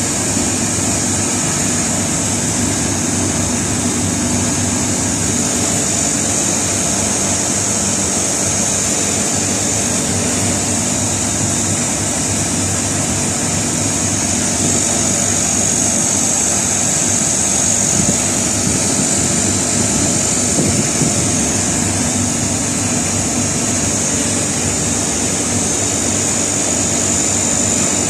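Air conditioner outdoor unit running with a steady hum and a constant high-pitched whine. Its condenser fan motor is sticking and due for a bearing repair.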